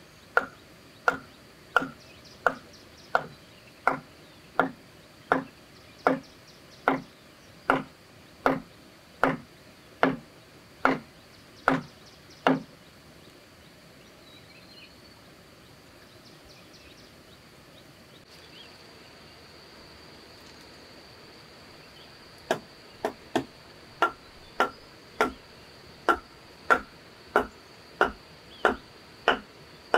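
Steady rhythmic chopping blows on wood, about one and a half strikes a second, each with a short ringing knock. The blows stop for about ten seconds in the middle, then start again. A steady high insect buzz runs underneath in the second half.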